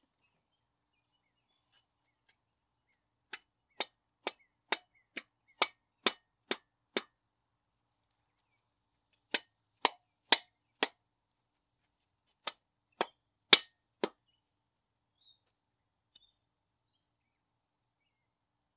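Sharp metal-on-metal taps in three evenly paced runs of about two a second: nine taps, then four, then four, the loudest near the end of the third run.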